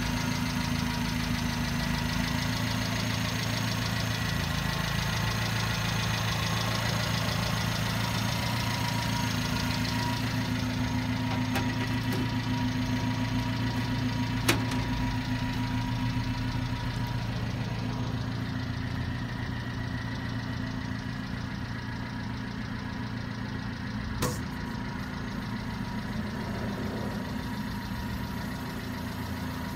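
Subaru Sambar truck's small engine idling steadily, with two sharp clicks, one about halfway through and another later.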